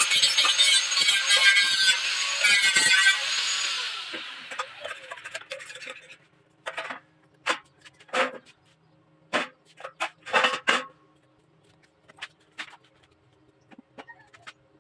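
Angle grinder grinding the end of a square steel tube, then switched off and spinning down over a couple of seconds. After that, a series of sharp metal knocks and clinks as the steel tubes are handled on the steel table.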